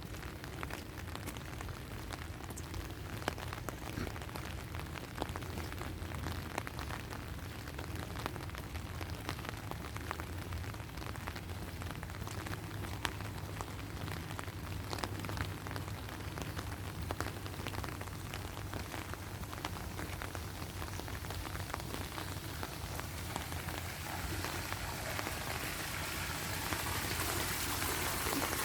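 Steady rain falling, with many separate drops ticking close by; it grows louder near the end.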